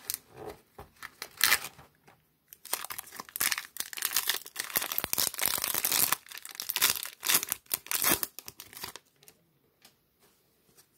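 Foil wrapper of a 2013 Topps Mini baseball card pack being torn open and crinkled by hand. A few sharp crackles come first, then dense rustling from about two and a half to nine seconds in, before it goes quiet.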